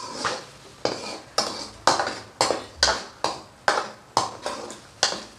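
A steel spoon scraping and knocking against a kadai while stirring a thick tomato-and-onion masala, in quick strokes about two a second.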